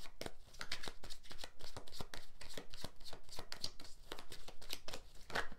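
A deck of tarot cards shuffled by hand: a quick, irregular run of papery card clicks and slaps, with a louder slap near the end.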